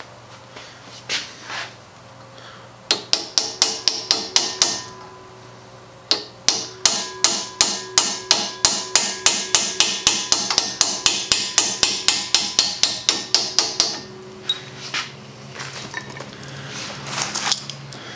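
A hammer tapping a steel nail set to drive a stuck taper pin out of the shaft of an antique Singer treadle sewing machine's wooden pitman arm. A quick run of sharp metallic taps about three seconds in is followed, after a short pause, by a long, even run of about four taps a second lasting some eight seconds, each tap with a brief ring.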